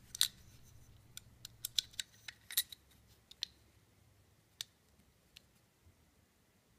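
Small sharp metal clicks and taps from a Sig Sauer P226 pistol frame being handled as its trigger pivot pin is seated. One louder click comes right at the start, a quick run of clicks follows over the next couple of seconds, then a few scattered ones.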